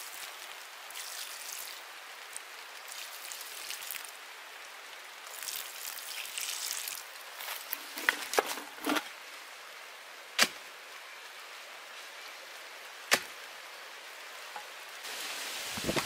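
Water poured from a jug splashing onto bare soil, then a steady faint outdoor hiss broken by a few short clicks and two loud sharp knocks in the second half, with rustling starting near the end.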